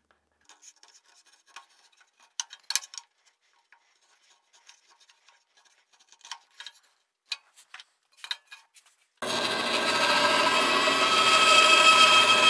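A wooden marking gauge's pin scratching intermittently along the edge of a hardwood knife blank as a line is scored on both sides. About nine seconds in, a bandsaw is switched on and runs with a steady hum, much louder than the scratching.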